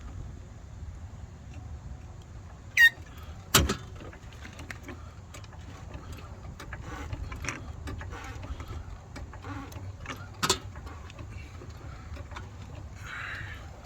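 Car jack being worked under a car: scattered metal clicks and creaks, a short squeak about three seconds in, then a sharp metal clank, and another clank about ten seconds in, over a steady low rumble.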